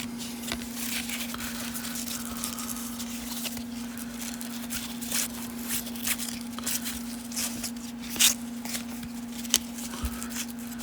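Baseball cards being handled and flipped through by hand: light clicks and swishes of card stock, with a sharper snap about 8 seconds in. A steady low hum runs underneath.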